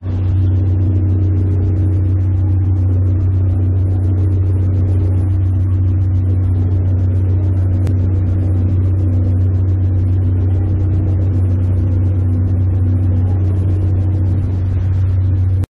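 An engine running steadily at constant speed, a strong low hum with fine rapid ticking over it; the sound cuts off suddenly near the end.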